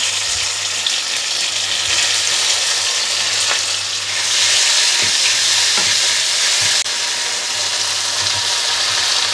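Sambal chili paste sizzling in hot oil in a small nonstick frying pan while it is stirred with a wooden spatula. The sizzle is a steady hiss that swells for a couple of seconds around the middle, then settles back a little.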